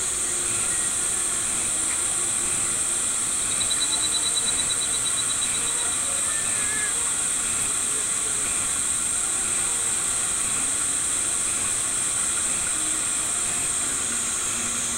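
A steady high-pitched hiss, with a short fast string of ticks about three and a half seconds in.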